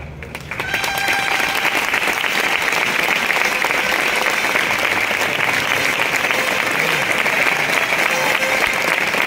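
Crowd applauding: the clapping swells within the first second after the band's music dies away, then holds steady and thick.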